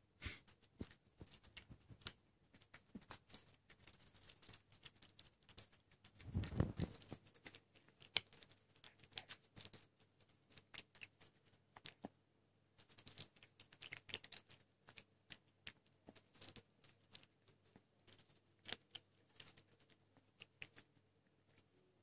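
A kitten chewing dry cat kibble, an irregular run of small crisp crunches and clicks. A duller low bump comes about six seconds in.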